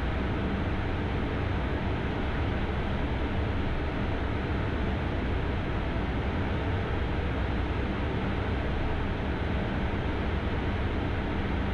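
Steady rushing cockpit noise of an Embraer Phenom 300 business jet climbing in flight: airflow over the cockpit with a low engine hum beneath it, unchanging throughout.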